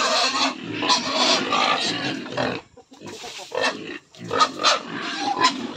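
Domestic pigs squealing in their pen, waiting to be fed: a run of loud, harsh calls, a brief pause about halfway, then several shorter squeals.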